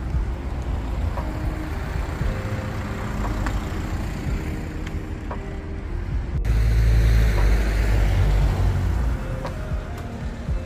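Quiet background music with a melody over a steady low rumble of street noise. The rumble grows louder from about six and a half seconds in.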